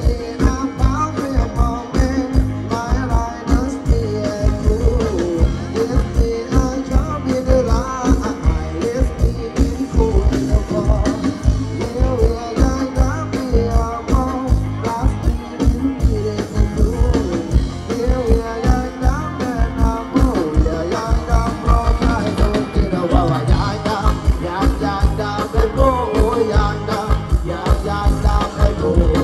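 Live Thai ramwong band playing through a PA, a singer's voice over a steady, fast drum beat.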